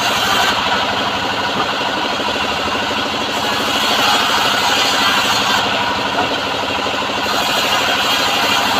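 Home-built bandsaw sawmill running steadily, its drive engine keeping up a fast even pulse under a strong high hiss.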